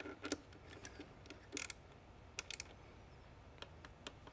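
Scattered light metal clicks and ticks of a hex key working the two water bottle cage bolts on an aluminium e-bike down tube, about six irregular clicks with quiet between them.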